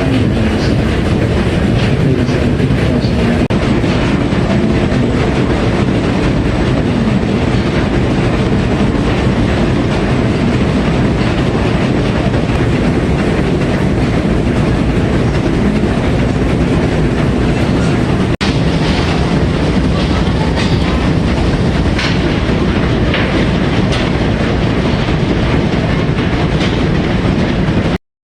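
Steady, loud machinery running in the boiler room of the coal-fired steamship TSS Earnslaw, its steam plant working under way. The sound cuts off suddenly near the end.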